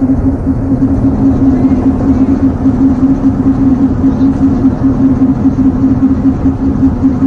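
Diesel engine of a tracked UR-77 Meteorit mine-clearing vehicle idling steadily, a constant hum over a low rumble.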